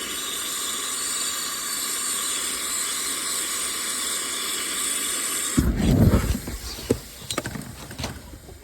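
R454B refrigerant hissing steadily out of the high-pressure switch port, then about five and a half seconds in a loud low whump, the explosion of the title, followed by scattered knocks and clatter.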